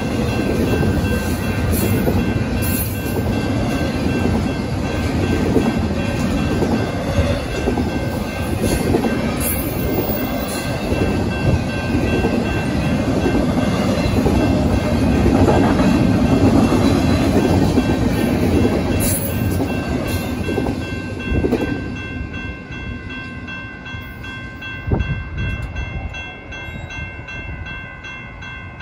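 Double-stack intermodal freight train rolling through a grade crossing, wheels rumbling and clattering over the rails, while the crossing's warning bell rings steadily. The last cars pass a little over 20 seconds in and the rumble fades, leaving the bell ringing on its own.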